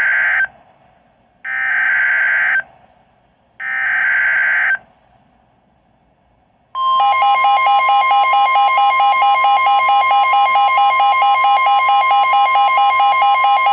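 Emergency Alert System SAME header: the end of one raspy digital data burst, then two more bursts about a second long and a second apart. After a short pause, about seven seconds in, the EAS attention signal starts, a loud, steady two-tone alarm with a fast flutter.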